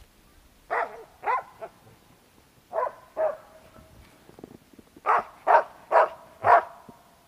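Hunting dog barking up a tree at a squirrel it has found, the bark that marks the treed squirrel for the hunter. Eight sharp barks come in short groups: two, then two, then four in quicker succession near the end.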